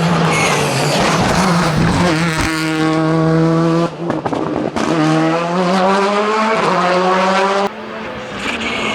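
Skoda Fabia R5 rally car's turbocharged 1.6-litre four-cylinder engine accelerating flat out, rising in pitch through the gears. The engine lets off sharply about four seconds in, climbs again, and drops near the end.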